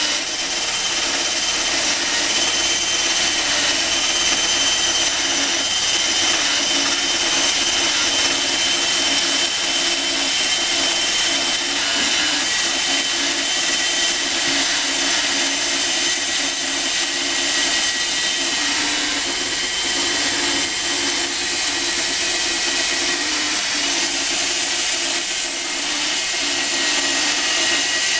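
Homemade electric sawmill running steadily as its blade cuts lengthwise through a Torrey pine log, a steady high whine over the noise of the cut.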